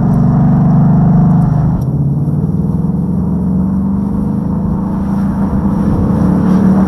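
2019 Ford Mustang Bullitt's 5.0-litre V8 running under way with a steady low drone. It eases off about two seconds in and builds again toward the end.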